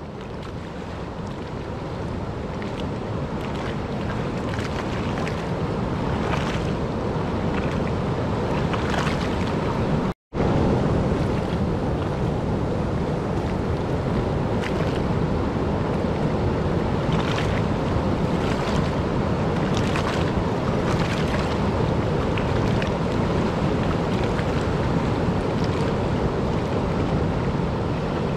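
Steady rushing of a swollen river running high with flood water. It fades in at the start and cuts out for an instant about ten seconds in.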